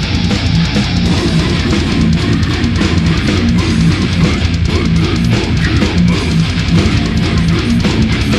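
Instrumental death metal: a distorted electric guitar riff of low chugging notes over fast, dense drumming.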